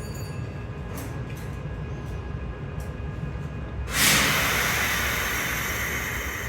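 Train sounds: a steady low rumble, then a sudden loud hiss about four seconds in that slowly fades.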